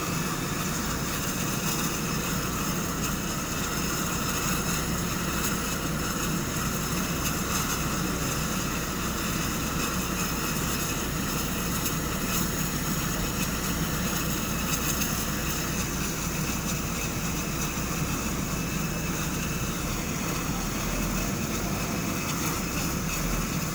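Turbo Thrush agricultural aircraft's turboprop engine running at ground idle: a steady turbine whine over propeller and exhaust rumble, unchanging throughout.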